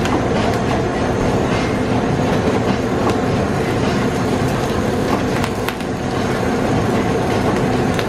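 Handheld butane torch hissing steadily as it sears slices of chashu pork on a metal plate, over the steady roar of commercial kitchen burners.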